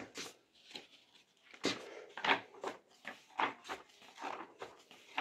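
Pages of a thick textbook being turned quickly by hand: an irregular run of short papery swishes and flaps, about two a second.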